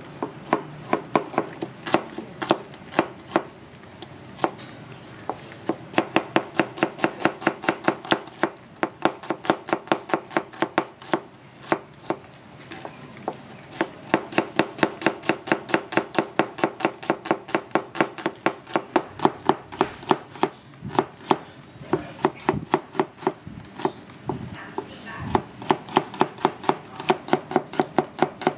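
Knife chopping food on a cutting board: a fast, steady run of knocks, about three to four a second, stopping briefly a few times.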